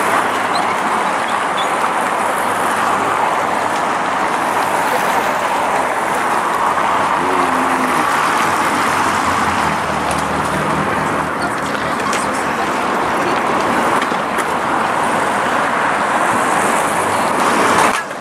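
Steady city road traffic: cars driving past on a wide street. It cuts off abruptly near the end.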